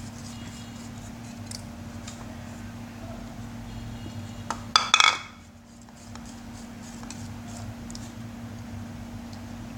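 A stirrer working slime mixture in a bowl, knocking against the bowl in a quick cluster of sharp clinks about halfway through, with faint light ticks elsewhere over a steady low hum.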